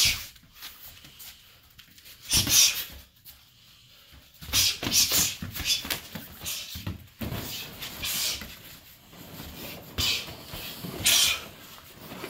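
MMA sparring: a sharp smack of a gloved punch landing at the start, then short bursts of hard breathing and scuffling about every one to two seconds as the two fighters trade strikes and clinch.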